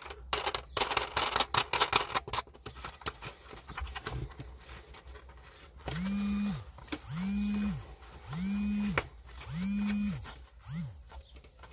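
Plastic clicking and scraping as an old 12-volt cigarette-lighter socket is worked loose from a car's dash panel. About halfway through come four evenly spaced low buzzing pulses, each rising to a steady hum and dying away, then a short fifth one.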